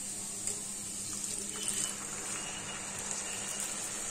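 Water poured from a measuring cup into a pan of ghee-fried rice, a steady splashing pour.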